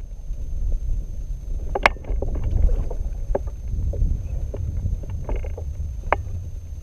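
Low rumble of wind and water around a fishing kayak, with scattered clicks and knocks from the angler's rod, reel and gear as he casts and works a jerkbait. The sharpest click comes about two seconds in.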